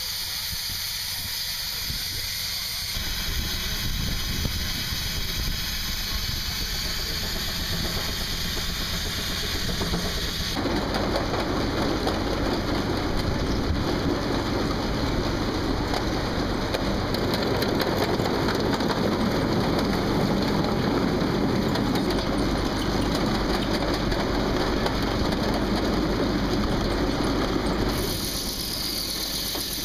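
Steam traction engine running with steam hissing, then the steady mechanical din of the large belt-driven circular sawmill it powers, its blade turning. The sound grows louder about ten seconds in.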